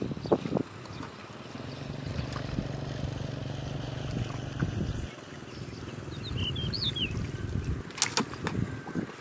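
Hands sloshing and groping through shallow water and mud, with a few sharp splashes near the start and a louder cluster about eight seconds in. A few short high chirps come in the middle.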